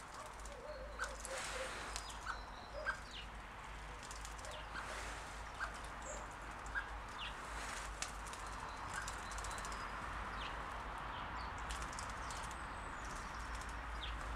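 A starling bathing in shallow pond water, splashing and fluttering its wings, with short bird chirps every second or so over a steady watery hiss.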